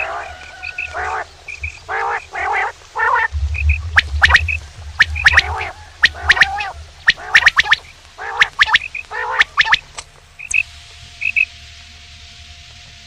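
Male quail calling: a quick string of harsh, rasping calls mixed with short clear paired notes and sharp clicks. The calling stops about ten seconds in, leaving a faint steady hum.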